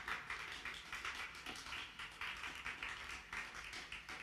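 A small audience clapping between songs, irregular scattered claps.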